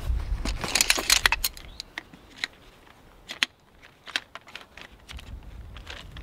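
Metal-like clicking and rattling of a folding camp chair's jointed pole frame being pulled out and unfolded by hand. There is a dense burst of clatter about a second in, then scattered single clicks as the legs are spread and seated in their hub.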